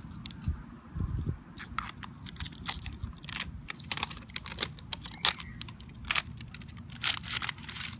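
Thin plastic wrap crinkling and tearing as it is peeled off a toy surprise ball, a rapid irregular run of sharp crackles.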